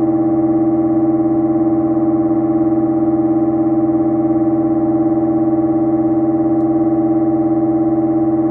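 Buchla Music Easel synthesizer holding a steady drone at one pitch: the complex oscillator frequency-modulated by the modulation oscillator, which is itself balanced-modulated by the 208 Toolbox's square-wave audio oscillator. The result is a buzzy tone rich in overtones with a slight fast flutter.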